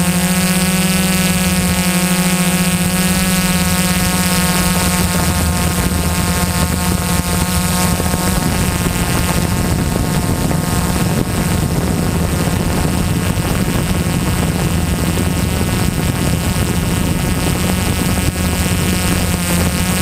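DJI S800 EVO hexacopter's six electric motors and propellers buzzing in flight, heard through the camera mounted on the drone. The whine holds a steady pitch for the first several seconds, then turns rougher and noisier.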